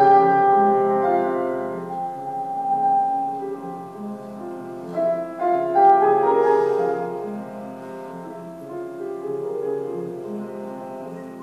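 Slow piano music: held chords that ring and fade, with new notes struck about five and six seconds in.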